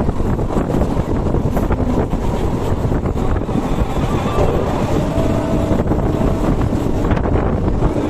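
Passenger train running at speed, heard from an open door: the steady rumble and clatter of the coach on the rails mixed with heavy wind on the microphone. A faint steady tone sounds for a second or two about halfway through.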